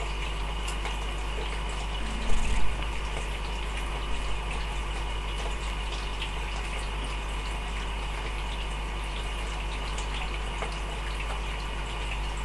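Steady trickle of aquarium water with the hum of running tank equipment, and a brief bump about two seconds in.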